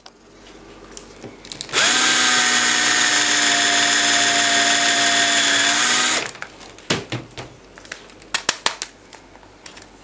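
Cordless drill running steadily for about four seconds, drilling out a tamper-proof screw in a plastic hair dryer casing; it starts about two seconds in and stops about six seconds in. A few sharp clicks and knocks follow near the end.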